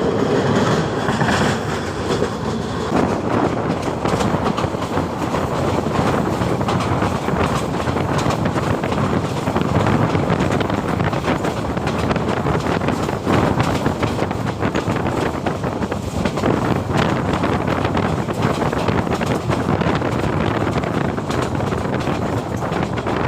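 A moving train's steady rumble with wheels clattering on the rails.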